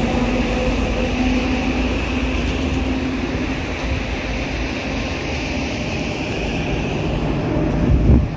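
A steady rumbling drone with a faint low hum running under it, swelling a little near the end.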